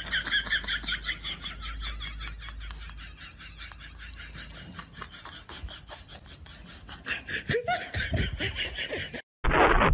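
A person laughing in a long run of quick repeated pulses, fading in the middle and growing louder again near the end before cutting off suddenly.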